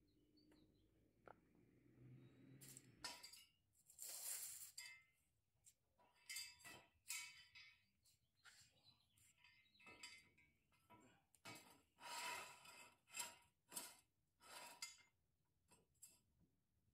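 Faint metallic clinks and short scrapes, a dozen or so in a row, of steel jack stands being slid into place and set under a car's front end.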